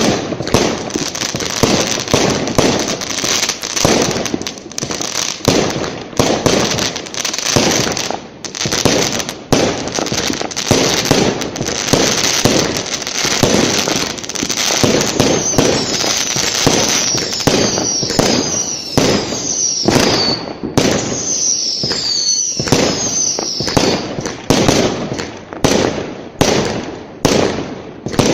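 Fireworks going off in a dense, continuous barrage of bangs and crackling, with a run of short falling whistles through the middle stretch.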